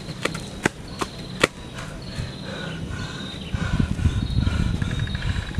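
Sharp knocks at about two a second for the first second and a half. Then outdoor ambience: repeated short chirping calls, with a low rumble that grows louder about halfway through.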